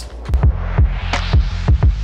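Electronic background music: a deep bass line with a thumping beat under a swelling hiss.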